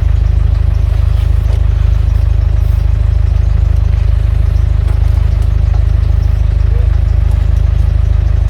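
Car engine and road rumble heard from inside the cabin: a loud, steady low drone that doesn't change.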